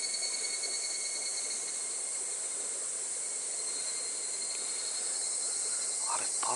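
Steady high-pitched chorus of insects, an even drone with a constant thin whine through it.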